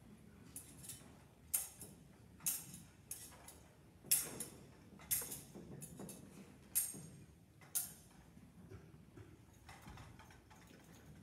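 A string of about eight sharp clicks and clinks, spaced unevenly over several seconds, the loudest about four seconds in.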